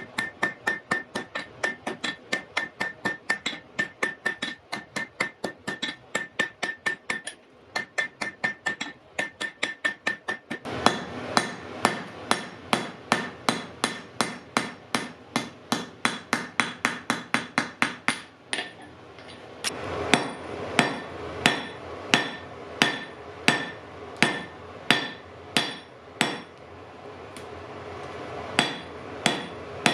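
Blacksmith's hammer forging iron on an anvil, in steady blows about three to four a second with a ringing note, pausing briefly a few times. After the second pause, the blows come slower, about two a second.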